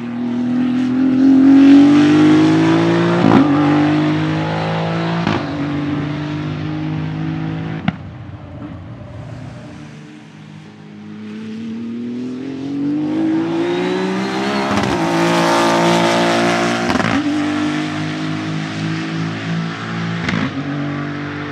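Maserati MCXtrema's 3.0-litre twin-turbo V6 accelerating hard, its pitch climbing through the gears with quick upshifts: two in the first pull, then after a fade a second pull with three more shifts. There is a single sharp crack about eight seconds in.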